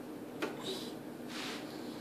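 A plastic dog-door flap being pushed and held open by hand gives one sharp click about half a second in. After it come a few soft rustles over a steady low room hum.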